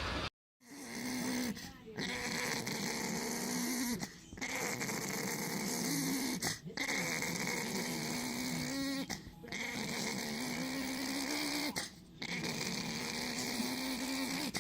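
A dog making long, low, drawn-out vocal sounds in about six stretches of two seconds or so, each broken by a short pause.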